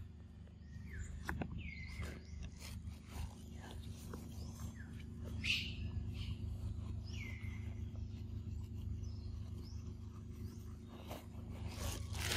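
Forest ambience: a few short, falling bird chirps over a steady low hum, with scattered light clicks and rustles that thicken near the end.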